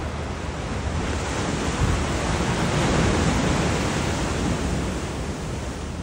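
Ocean surf: waves breaking and washing up the beach, swelling to its loudest about halfway through and easing off toward the end, with wind rumbling on the microphone.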